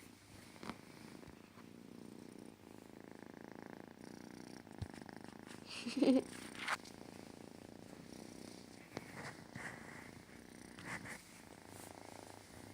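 Kitten purring steadily, with a brief louder sound about six seconds in and a few faint clicks.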